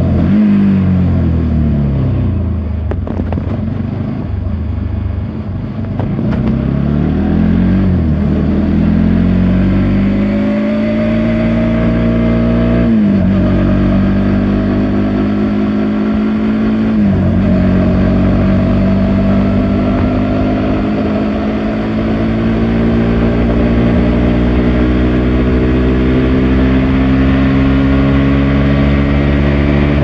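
Bajaj NS200's single-cylinder engine under way. It comes off the throttle and slows, then pulls up through the revs, with two sharp drops in pitch from quick upshifts a little before halfway and a few seconds later. After that it climbs slowly and steadily in a higher gear.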